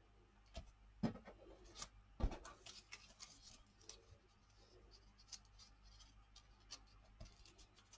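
Paper cutouts being handled and slid by hand on an art journal page: soft rustling with scattered light taps, the loudest a little over two seconds in.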